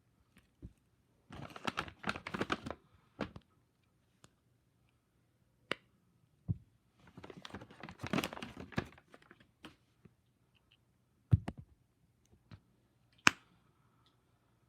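Small plastic fidget toys and their packaging being handled: two bursts of rapid clicking and crinkling, with a few single sharp clicks and taps between them.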